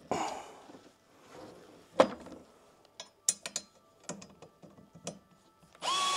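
Handling noise while a table is being screwed together: one sharp knock about two seconds in, then a run of light clicks and taps. Near the end a Bosch screwdriver's motor starts and runs with a steady whine.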